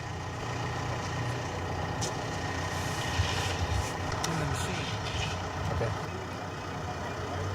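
Heavy diesel demolition machinery running steadily, with a few sharp knocks and crunches, the loudest about three seconds in.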